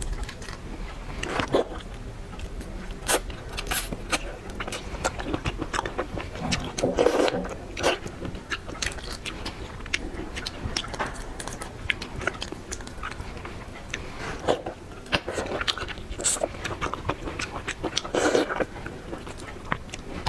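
Close-up eating of seafood: irregular bites, wet clicks and scrapes, with a few longer crunching or chewing bursts.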